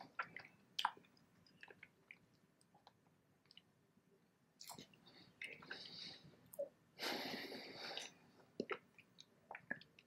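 A person chewing a mouthful of soft brownie-cookie ice cream sandwich, with small wet mouth clicks. There is a louder breath from about seven to eight seconds in.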